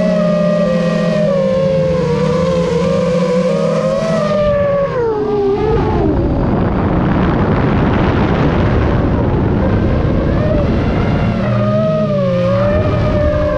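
RC gyrocopter's motor running with a steady whine that drops in pitch about four to five seconds in. A rushing air noise takes over for several seconds. The whine returns near the end and rises in pitch as the throttle comes back up.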